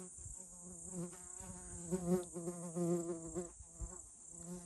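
A fly buzzing close by, its hum wavering in pitch and growing louder about two and three seconds in, over a steady high insect chirring.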